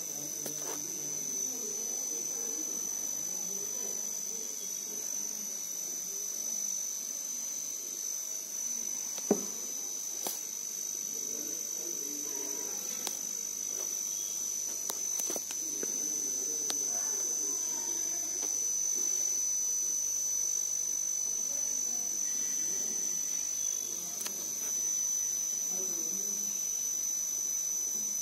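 A steady high-pitched whine that holds one pitch throughout, over a faint low murmur of background noise. A sharp click comes about nine seconds in.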